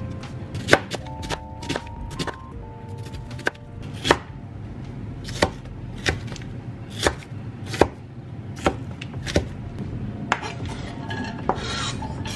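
Kitchen knife slicing an onion on a plastic cutting board: sharp knocks of the blade striking the board, irregularly spaced at about one or two a second, thinning out near the end.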